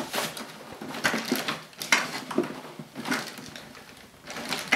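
Cardboard box rustling and scraping, with a few sharp knocks, as a plastic toy vacuum cleaner held firmly in its packaging is tugged at.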